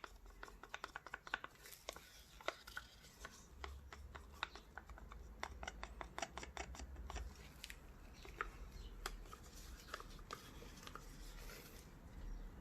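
Quick, irregular light clicks and taps with some scraping from hands handling pour-painting materials, such as plastic paint cups and stirring sticks, over a faint low hum.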